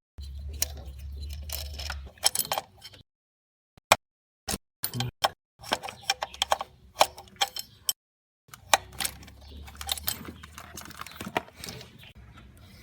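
Metal tools and engine parts clicking and clinking in quick irregular ticks while the Bosch VP44 injection pump's locking bolt and spacer plate are worked on. The sound cuts off abruptly to silence several times.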